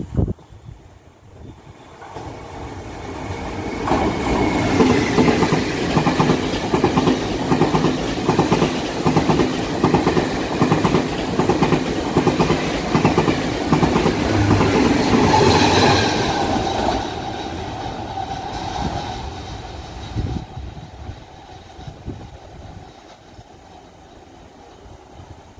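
Taiwan Railway PP Tze-Chiang (E1000 push-pull) express passing at speed. The rumble builds over a couple of seconds, then becomes a rapid, loud clickety-clack of wheels over rail joints for about twelve seconds. It fades away with a lingering steady hum.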